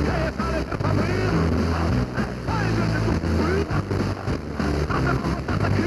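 Music with a voice over it, playing through the small speaker of an XHDATA D-808 portable radio. The radio is tuned to 105.8 MHz FM and is picking up a station about 227 km away in Romania.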